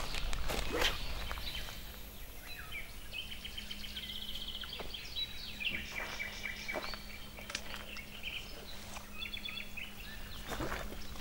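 Songbirds singing and trilling around a lake, with rapid repeated chirps. About a second in, a brief swish as a fishing rod is cast. A faint steady hum sits underneath.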